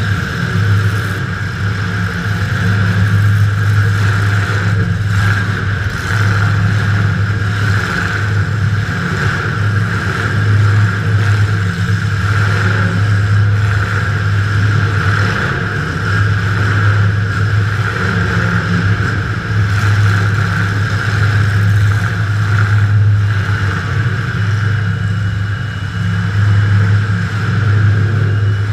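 Demolition derby car's engine running loud and steady, heard from inside the car, with only small rises and falls in pitch.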